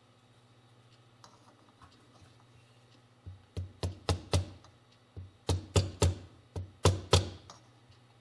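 A soft-faced hammer tapping a half-inch socket extension used as a seal driver, seating the clutch push rod oil seal into a Yamaha YL1 aluminium crankcase. There are about a dozen sharp taps in three quick groups, starting about three seconds in.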